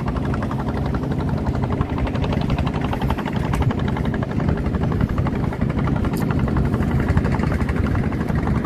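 Small boat engine running steadily, with a fast, even pulse.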